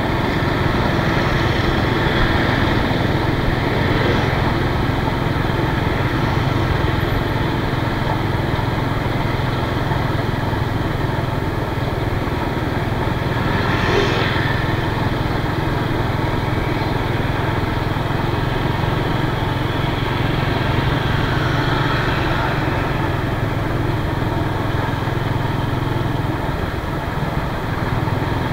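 Small motorbike engine running steadily while riding through traffic, with a constant low hum, road noise and other vehicles around. A short louder rush comes about halfway through.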